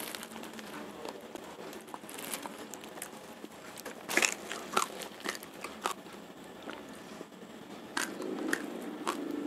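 Raw Rojolele rice grains crunching between the teeth as a man chews: sharp, irregular crunches, thickest about four to six seconds in and again near the end, with crinkling of the plastic-lined woven rice sack.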